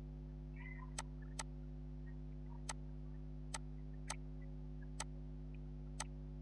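Computer mouse button clicking seven times at irregular intervals, each a single sharp click, over a steady low electrical hum.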